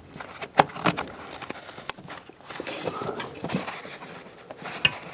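Hands fitting the electrical connector onto the EGR valve actuator: several sharp plastic clicks and knocks with rustling and scraping of the wiring between them.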